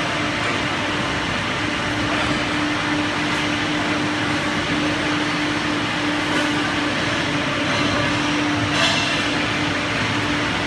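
CNC pipe bending machine running with a steady hum over workshop machine noise, with a brief clatter near the end.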